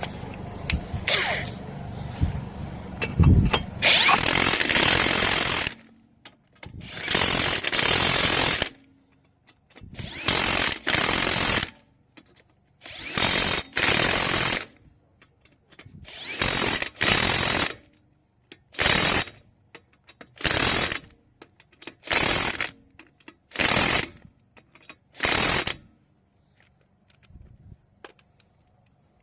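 Impact wrench running lug nuts on a car wheel in about ten separate bursts. The early bursts last a second or two; the later ones are short and come about every second and a half.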